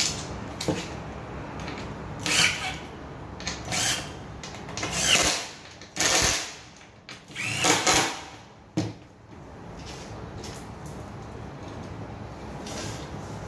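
Cordless drill driving the screws that fix an office-chair armrest to the seat, run in several short bursts with the motor pitch bending as each screw tightens.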